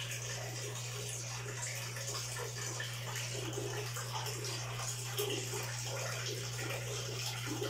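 Steady trickle of running water over a constant low electrical hum.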